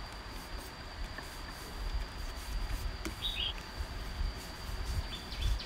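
Steady background with a thin high-pitched whine and a low rumble. A short chirp comes about three seconds in, and a run of quick short chirps near the end.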